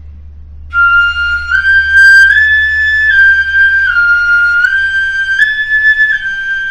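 Pífano, a wooden transverse fife in C, playing a slow stepwise pattern in its high octave: F, G, A, G, F, G, A, G, each note held a little under a second, starting about a second in.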